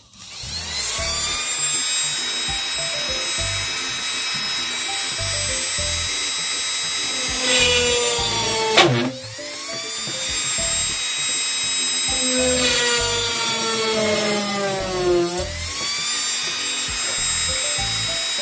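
Small 12-volt DC motor drill with a fine drill bit running at speed, a steady high whine. Twice its pitch sags as the bit bites into the work under load, dropping sharply once, then climbs back to full speed. Background music plays underneath.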